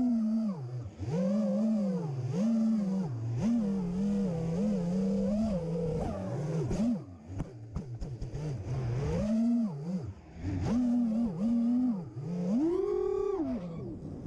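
A 5-inch FPV racing quadcopter's four brushless motors (Armattan Ooph 2206 2300kv) spinning DAL 5046 props, heard from on board as a buzzing whine. The whine swells and falls with the throttle, drops away briefly several times, and rises to a higher-pitched punch near the end.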